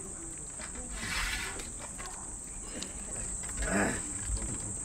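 Crickets chirring in a steady, high-pitched trill.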